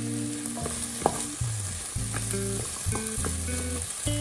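Diced potatoes and red onion sizzling as they fry in avocado oil in a non-stick GreenPan, stirred with a wooden spatula that scrapes and knocks against the pan now and then.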